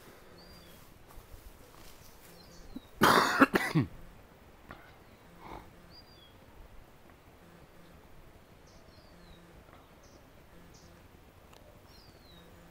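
A person coughs hard once, a loud burst of just under a second about three seconds in, with a lesser cough-like sound a couple of seconds later. Faint short chirps of small birds come and go in the background.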